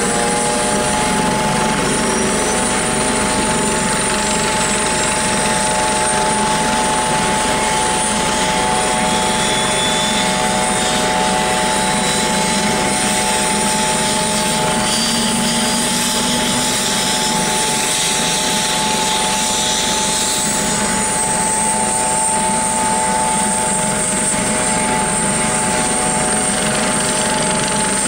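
Steady whine of a multirotor drone's propeller motors: several steady tones, and a thinner high whine that climbs slowly about halfway through.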